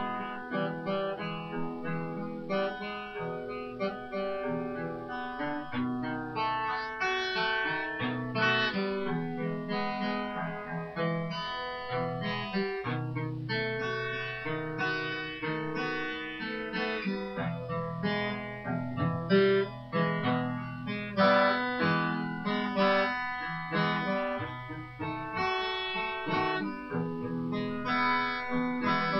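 Instrumental music: a plucked guitar playing a quick run of notes.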